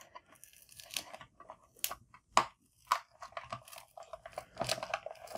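Hard plastic label-printer housing being handled and pulled at by hand: irregular clicks, creaks and crunches of the plastic case.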